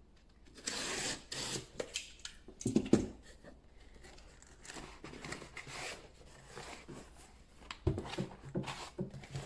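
Yellow snap-off box cutter slitting the packing tape on a corrugated cardboard shipping box, with sharp knocks about three seconds in, then cardboard scraping and knocking as the box is handled and its flaps pulled open.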